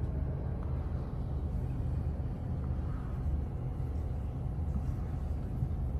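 A sailing catamaran's engine running under way: a steady low rumble with no change in pace.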